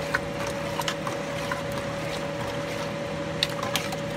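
A spoon stirring thick chili in a metal cooking pot: wet squelching of the mixture with scattered clicks and scrapes of the spoon against the pot, a couple of sharper ones a little past three seconds in. A steady hum runs underneath.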